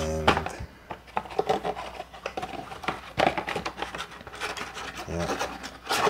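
Cardboard box of a Hama audio cable being handled and opened: irregular rubbing and scraping of cardboard and packaging, with many short clicks and taps.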